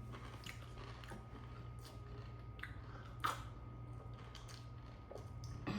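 Close-miked chewing and biting of crunchy snack food, with scattered soft crunches and one louder crunch about halfway through.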